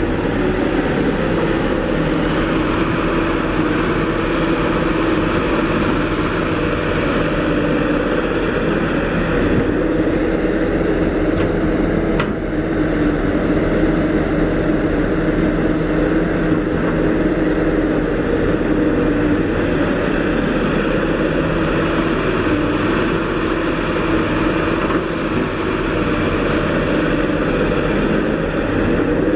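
Kobelco SK350 excavator's diesel engine running steadily, a continuous droning hum with no big changes in speed.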